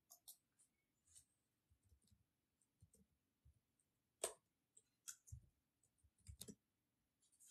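Faint, irregular taps and clicks of someone typing on a device, the loudest a little past halfway.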